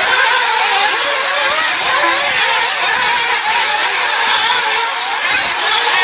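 Several RC off-road race cars running together on a dirt track, their small motors whining and rising and falling in pitch as they accelerate and slow through the jumps.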